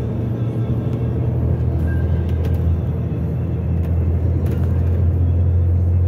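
Car driving, heard from inside the cabin: a steady low engine and road drone that drops a little in pitch about a second in.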